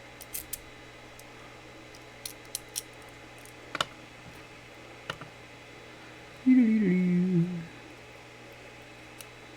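Small metal clicks and taps of lock tools working a Mul-T-Lock Classic Pro lock, a few scattered over several seconds. About six and a half seconds in, a person gives a short hummed 'hmm' that slides down in pitch, the loudest sound.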